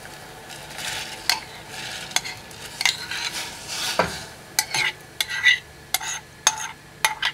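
Soaked buckwheat groats poured from a ceramic bowl into a saucepan of water coming to the boil: a soft rush of grains into the water. From about halfway on, a spoon scrapes the bowl, giving a quick run of sharp clicks and taps against it.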